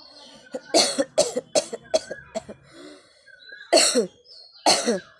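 A person coughing hard on purpose, as in a coughing challenge: a quick run of about six coughs, then a pause and two more single coughs about a second apart.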